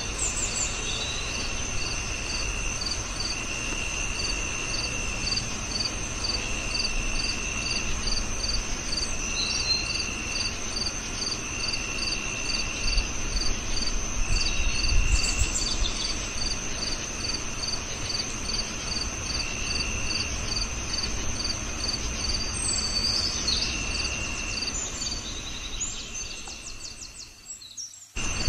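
Crickets chirping in steady, evenly spaced pulses, several calls overlapping over a low background hiss, dropping away just before the end.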